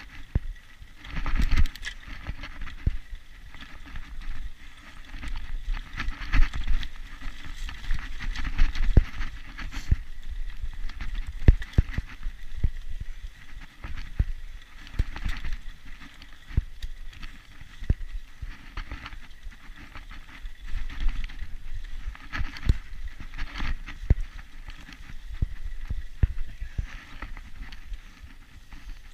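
Mountain bike ridden along a dirt trail: a continuous rolling, crunching noise from the tyres, broken by frequent sharp clicks and rattles as the bike goes over bumps, with a low rumble of wind on the microphone.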